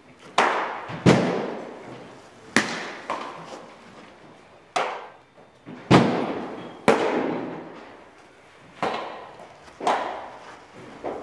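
Pitched baseballs smacking into catchers' mitts in a large indoor hall: about nine sharp pops at uneven intervals, each with a long echo.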